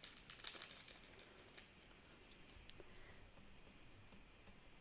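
Faint small clicks and ticks of tiny sprinkle toppings being handled and shaken over slime, a quick cluster in the first second and a half, then only a few scattered ticks.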